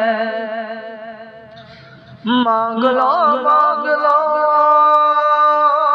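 A man singing an Urdu naat in long, wavering held notes. A held note dies away over the first two seconds, then a new phrase begins loudly about two seconds in.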